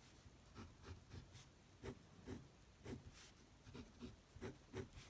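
Fountain pen nib writing on Tomoe River paper: a faint run of about a dozen short strokes, two or three a second.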